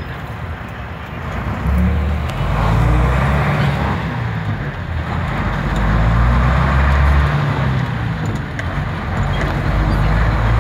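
Bus engine running as the bus moves along slowly, heard from inside the bus with road noise; the engine note rises and falls, swelling about two seconds in and again around six seconds.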